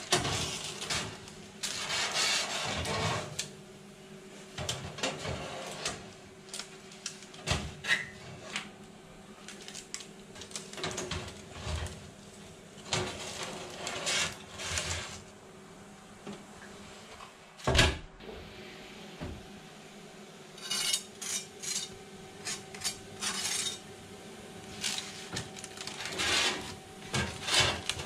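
Metal oven trays being slid out along the oven's runners and handled, with irregular scraping and clattering and one sharp clank a little past halfway, over a faint steady hum.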